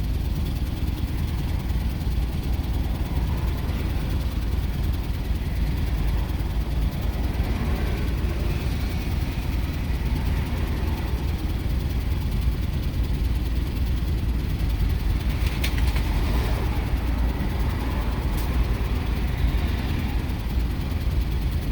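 Jeep Commander 4.7 L V8 idling steadily with a low rumble; the engine has logged a P0300 multiple-cylinder misfire. Two short clicks are heard in the later part.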